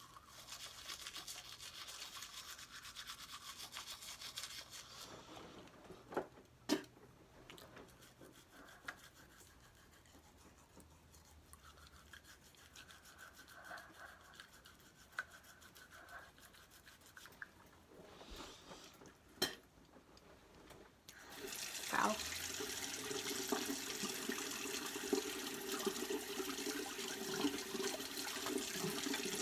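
A manual toothbrush scrubbing teeth and tongue, quieter through the middle with a couple of sharp clicks. About two-thirds of the way in, a louder steady rush of water starts: a sink tap running.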